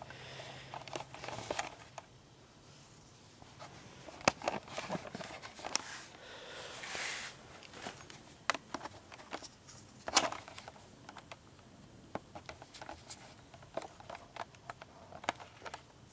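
Handling noise from a camera being moved and repositioned: scattered light clicks and knocks, with two louder knocks about four and ten seconds in and a short rustle around seven seconds in.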